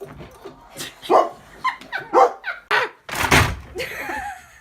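A dog barking in a series of short barks, with a loud thump about three seconds in.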